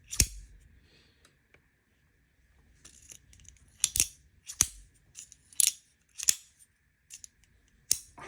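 Demko AD20.5 shark-lock folding knife being opened and closed to test its action after the pivot screw adjustment: about six sharp metallic clicks, spaced a second or so apart, as the blade snaps open and shut and the lock engages.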